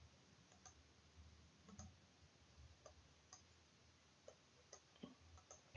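Near silence broken by faint, irregular clicks from a computer mouse and keyboard being used.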